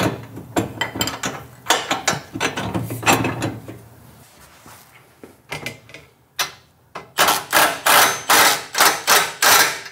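Steel parts of a swing-out tire carrier knocking and clattering as they are fitted into a hitch receiver. A ratchet wrench follows in quick strokes, about three a second, over the last three seconds.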